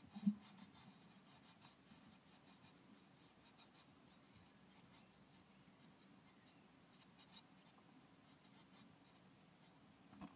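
Blue tit chicks moving about in a nest box: faint, irregular scratching and rustling of their feet on nest material, with one soft thump a fraction of a second in.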